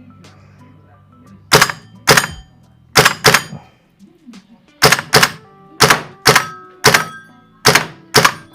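Gas-powered airsoft M1 carbine firing single shots: eleven loud, sharp cracks at uneven spacing, often in close pairs.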